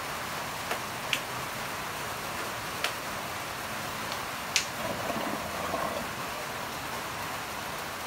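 Steady background hiss in a pool hall, broken by a few sharp, separate clicks and a brief faint murmur about five seconds in.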